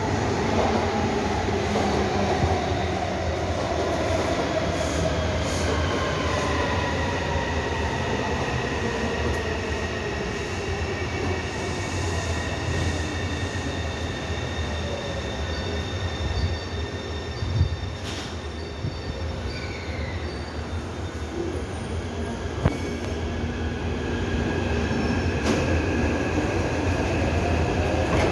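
Taipei Metro electric train arriving at an elevated station platform and braking. Its motor whine falls steadily in pitch as it slows over rail rumble and wheel squeal, with a few sharp clicks later as it comes to a stand.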